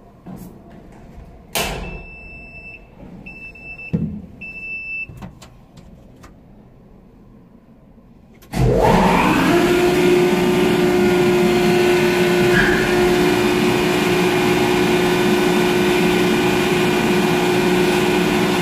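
Ship's deck crane powering up from its cab: a click and three short high beeps of the start-up warning, a knock, then about halfway through the crane's motor starts suddenly, its whine rising over a second and settling into a loud, steady hum.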